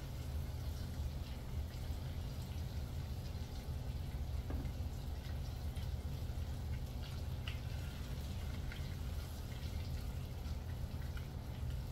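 Chicken thighs searing skin side down in butter and olive oil in a pan, scattered sizzling crackles and pops over a steady low hum.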